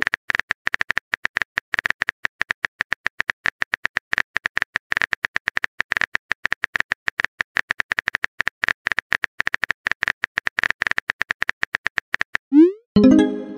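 Rapid, irregular tapping clicks of a phone-keyboard typing sound effect as a text message is typed out. Near the end the clicks stop and a short rising swoosh with a brief chime plays, the sound of a message being sent.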